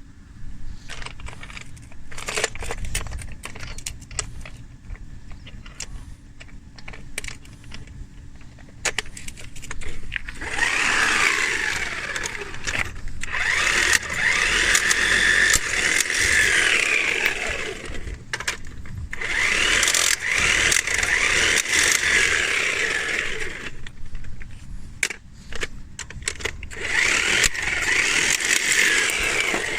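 Tools knocking and clicking for about ten seconds, then a power tool running in three long bursts whose pitch rises and falls.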